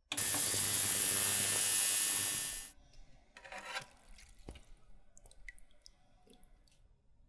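Ultrasonic cleaning bath running with a loud, even hiss as it cleans a metal watch bracelet in its basket. The hiss cuts off suddenly about two and a half seconds in, leaving only faint small drips and ticks.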